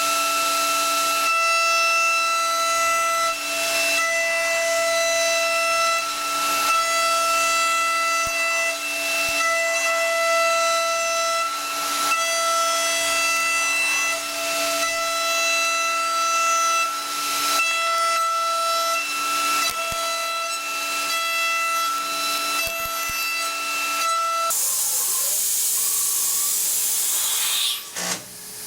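DATRON high-speed CNC milling machine cutting: a steady high-pitched whine of several even tones over a hiss. About three-quarters of the way through the whine stops and a loud hiss takes over for a few seconds, then drops away near the end.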